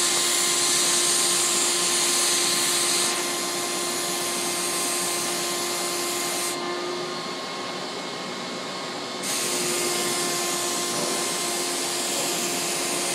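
Fuji three-stage HVLP turbine running steadily with a whine, and the rushing hiss of air from the gravity-feed spray gun atomizing spar varnish. The high part of the hiss drops away for a couple of seconds past the middle, then comes back.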